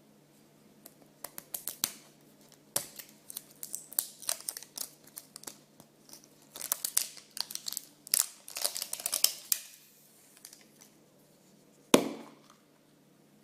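Packaging crinkling and tearing as toy eggs are unwrapped by hand, in uneven bursts of crackles and rustles. Near the end there is a single sharp snap.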